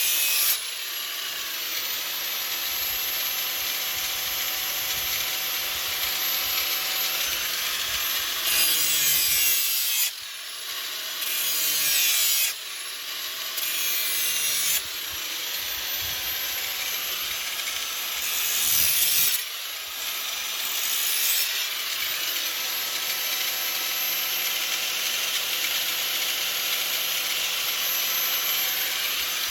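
Electric grinder running with a steady whine while grinding the steel edge of a lawn mower blade to sharpen it, the grinding getting louder and harsher in a few short spells where the wheel bites harder.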